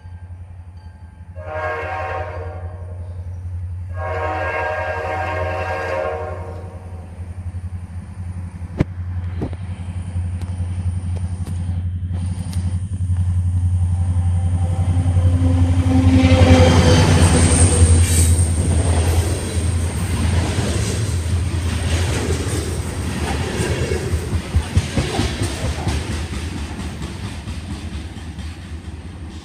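A Vermont Railway diesel freight locomotive sounds its horn twice, a short blast then a longer one, while its engine runs with a steady low hum that swells as the locomotive passes about sixteen seconds in. Freight cars then roll by with clicking and clattering wheels on the rails, fading near the end.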